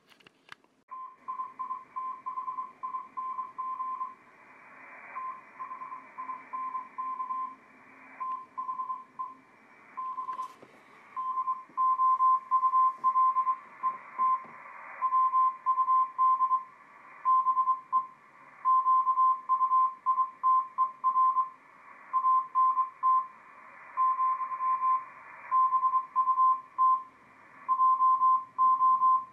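Morse code (CW) signal heard through an amateur radio receiver in SSB mode: a single tone near 1 kHz keyed in dits and dahs at about 20 words a minute, over band hiss limited by the receiver's passband. It starts about a second in and comes in louder from about eleven seconds on.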